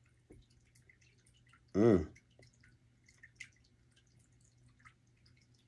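A man's single short vocal sound about two seconds in, rising then falling in pitch. Around it, faint scattered ticks sit over a low steady hum.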